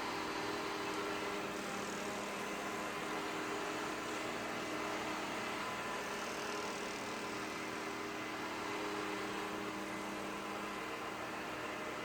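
Ecovacs DEEBOT OZMO 950 robot vacuum running: a steady whir of its motors and suction fan, with several steady tones over an even rush of noise.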